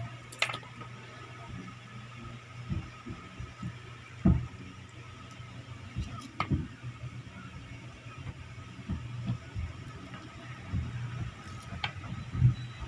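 Irregular soft thumps and a few sharp clicks as calamansi limes are cut with a small knife and squeezed by hand over a ceramic bowl, with a steady low hum underneath. The loudest thumps come about four seconds in and near the end.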